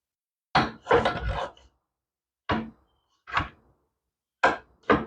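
Wooden template board with metal seat tabs being set and shifted on a steel go-kart frame: about half a dozen irregular knocks and clunks, with a short clatter about a second in.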